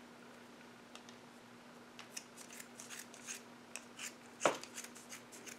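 Small embroidery scissors snipping through the yarn loops wrapped on a plastic clover pom-pom maker. A run of quick, crisp cuts starts about two seconds in, the loudest near the middle.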